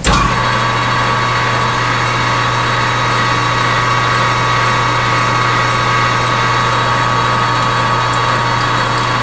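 Metal lathe switched on at the start, then its motor and headstock gears run at a steady hum with a constant whine, the chuck spinning freely without cutting.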